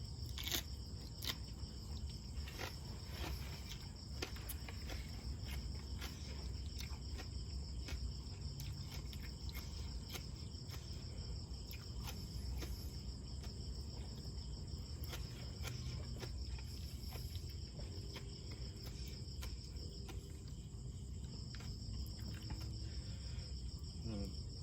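Steady high insect trill, breaking off for a second or so about twenty seconds in, over scattered small clicks and crunches of someone eating.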